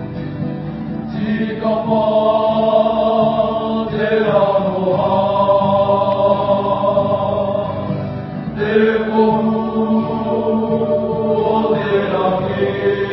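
A group of voices singing together in a chant-like song. Notes are held long and slide in pitch where the phrases change, with a fresh phrase every few seconds.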